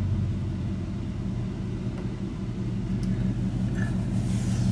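Steady low machine hum and rumble with a slight regular pulse, like an engine or compressor running.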